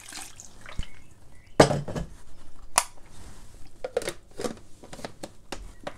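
A knock about one and a half seconds in as an electric kettle is set down on the counter, then a run of plastic clicks and knocks as the lid is pressed onto a Kenwood blender jug.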